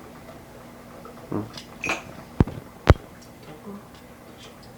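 Two sharp clicks about half a second apart from a microphone connection being fiddled with while the audio is crackling, over a faint steady hum. A couple of brief soft sounds come just before the clicks.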